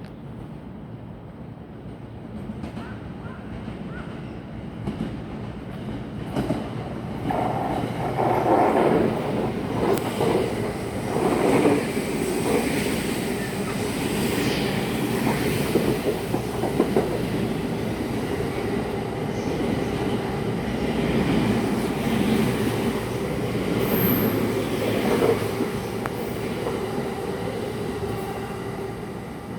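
Coupled pair of JR 285-series Sunrise Izumo/Seto sleeper electric multiple units passing through a station without stopping, wheels clattering over the rail joints. The rumble builds about six seconds in, stays loud for most of the pass and fades near the end.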